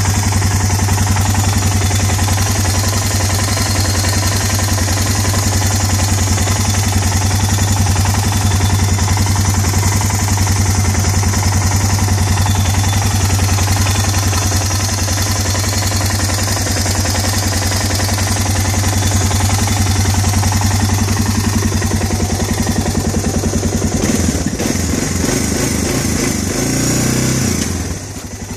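Engine idling steadily, its ticking noise now much better. Near the end the engine note shifts up and down a few times.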